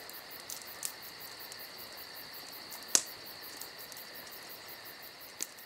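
Steady insect chorus of crickets chirping in a fast, even pulse, with three sharp clicks, the loudest about three seconds in.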